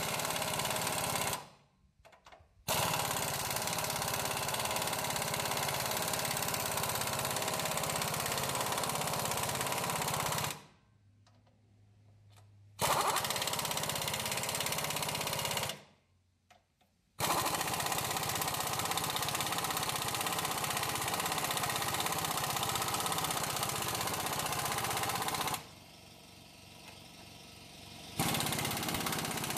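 Pneumatic impact wrench hammering as it drives lug nuts tight on a backhoe's rear wheel studs. It runs in long stretches of several seconds, stopping briefly four times as it moves from nut to nut.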